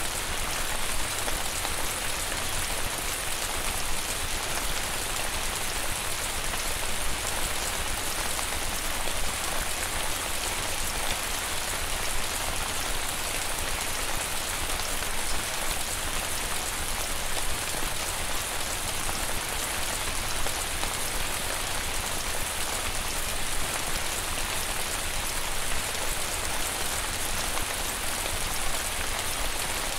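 Steady rain falling on a yard, an even hiss of drops with no breaks, as picked up by an outdoor security camera's microphone on an almost windless night.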